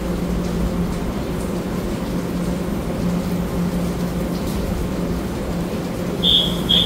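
EMU900 electric multiple unit standing at the platform with its doors open, its onboard equipment giving a steady hum and rushing noise. Near the end two short high beeps sound one after the other, the door warning before the doors close.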